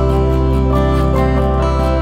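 Background music: gentle plucked notes over held, sustained chords and a steady bass.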